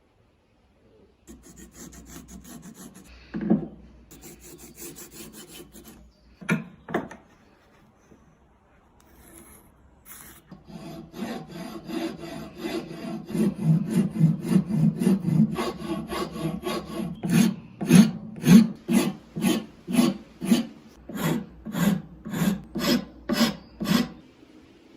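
Repeated hand strokes scraping the metal of a rusty wrench, settling in the second half into a steady rhythm of about two strokes a second. There are a couple of sharp knocks in the first several seconds.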